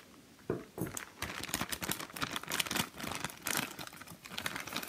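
Thin clear plastic toy bag being handled and crinkled by hand. After about half a second, a dense, irregular run of crackles and rustles.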